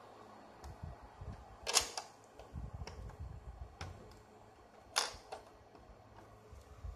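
Hard plastic clicks and knocks from hands handling an NEC projector and its adjustable front tilt foot: two sharp clicks, about two seconds in and five seconds in, with low bumps and rubbing between, over a faint steady hum.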